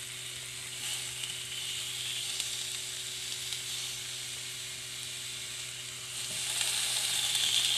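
Vegetables (zucchini slices, oyster mushrooms, asparagus and a hot pepper) sizzling on the hot plate of a Starfrit Rock smokeless indoor grill, a steady hiss that grows louder about six seconds in.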